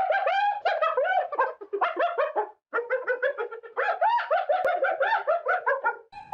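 An animal's rapid chattering calls, many short rising-and-falling notes in quick succession, in two bouts with a brief pause between them.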